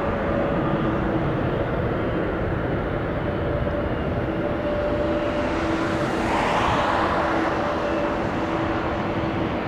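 Jet airliner engines, a steady rumble with two steady tones through it, swelling briefly into a louder hiss about six seconds in.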